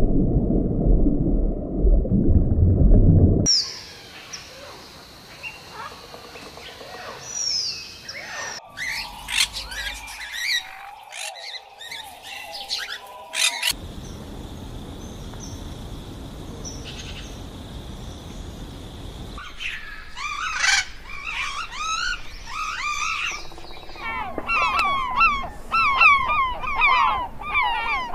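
A low rumble for the first few seconds cuts off abruptly. Then come scattered bird chirps and calls over a faint steady hiss, building near the end into a dense chorus of many birds calling rapidly.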